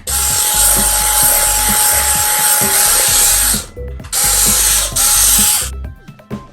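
Wall-climbing RC car's suction fan running with a loud hiss and a steady high whine, cutting out suddenly twice; after the second stop, quick clicking from the car's small geared drive.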